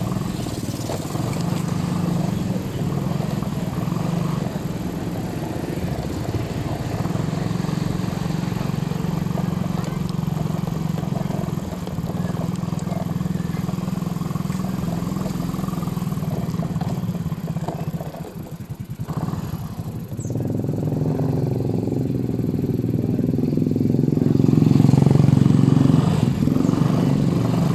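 A motor vehicle's engine running steadily under way. It drops away for a couple of seconds about two-thirds of the way through, then picks up again and grows louder near the end.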